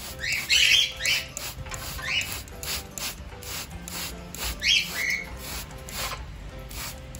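Hand trigger spray bottle being pumped over and over, giving quick hissing squirts of water mist, with a few louder short bursts about a second in, near two seconds and near five seconds.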